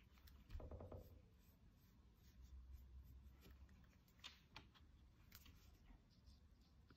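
Near silence, with faint strokes and a few small ticks of a brush pen working on paper, and a soft low thump about half a second in.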